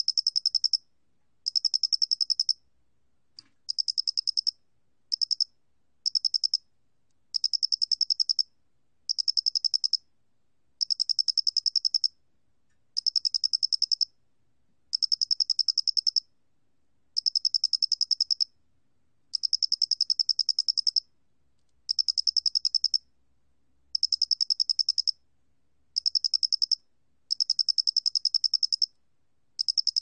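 Male 모대가리귀뚜라미 cricket (Loxoblemmus doenitzi) calling at 29 °C. Each call is a high, rapid trill of pulses about a second long, repeated every second and a half to two seconds.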